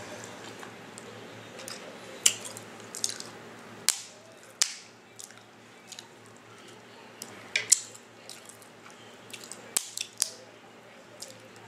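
Close-up eating sounds of a person working through a seafood boil: a series of sharp, irregular clicks and cracks, a few seconds apart, over faint wet mouth sounds.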